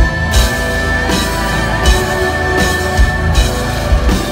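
Symphonic metal band playing live, heard from the audience: drums keep a steady beat under guitars and keyboards in a loud, dense mix.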